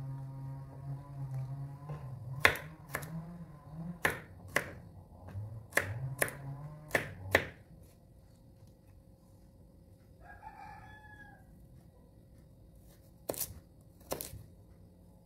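Kitchen knife cutting shallots, garlic and fresh turmeric on a plastic cutting board: sharp taps of the blade hitting the board, about eight in the first half and two more near the end. A low steady hum runs under the first half, and a rooster crows once, briefly, a little past the middle.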